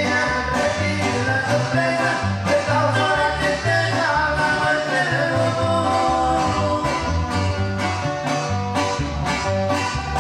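Live band music: acoustic guitar strummed over a bass line and a steady drum beat, with some singing.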